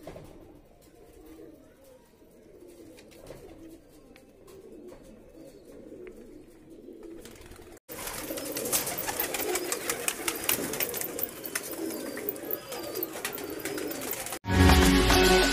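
Domestic pigeons cooing, a low wavering coo repeated over and over, louder from about eight seconds in. Loud music cuts in about a second before the end.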